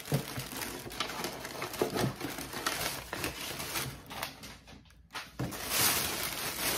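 Crinkling and rustling of a ballcap's printed wrapping bag as it is handled and pulled open. There is a short lull a little past halfway, then the crinkling comes back louder near the end.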